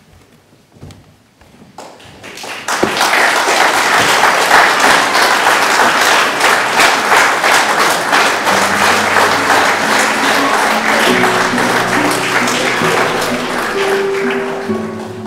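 Audience applauding, starting about three seconds in and staying loud and dense; music with sustained instrument notes comes in under the applause about halfway through and grows stronger toward the end.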